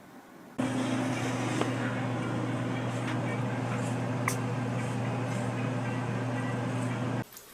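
Steady low mechanical hum with a rushing noise, cutting in abruptly about half a second in and cutting off abruptly near the end, with a few faint clicks over it.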